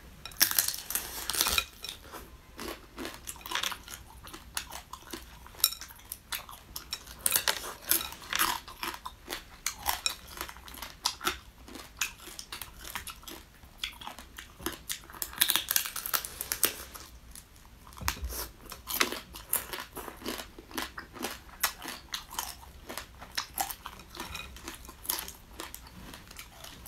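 Close-up crunching and chewing as small whole crabs are bitten through, shell and all: a dense, uneven run of sharp cracks and crunches.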